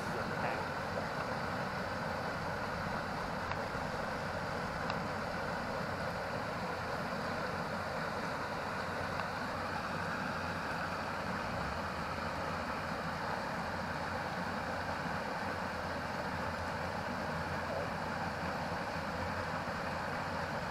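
A steady low hum and hiss of background noise, even throughout, with no distinct events.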